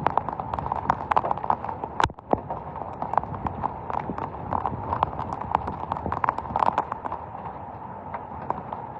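Heavy thunderstorm rain: a steady hiss with many irregular sharp taps of drops striking a hard surface close by, and a brief lull about two seconds in.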